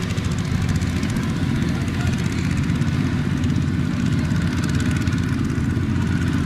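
Single-cylinder diesel engine of a two-wheel walking tractor running steadily as it pulls a loaded trailer.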